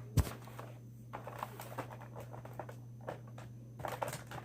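Handling noise: a sharp thump just after the start, then scattered light clicks and rustles, over a steady low hum.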